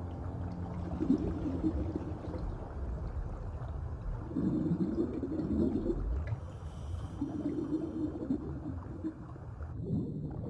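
Muffled underwater sound of air bubbles rising from a diving helmet, in three gurgling bursts, about a second in, around the middle and later on. A low underwater rumble runs beneath them.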